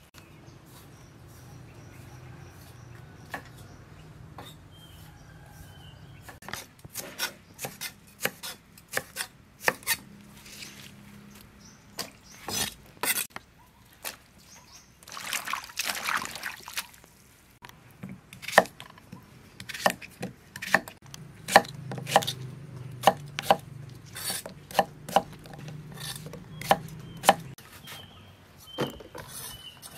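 Food-preparation knocks: a long, irregular run of sharp knife chops and taps on a cutting board, with a short rush of splashing water about halfway through.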